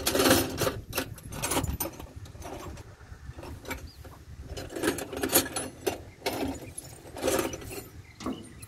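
Irregular metallic clinking and knocking of hand tools on the front wheel drive joint of a combine harvester, where a joint bolt has broken, over a low rumble.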